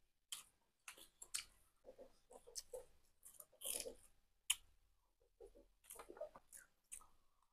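Faint eating sounds: a spoon clicking and scraping against a plate, with chewing.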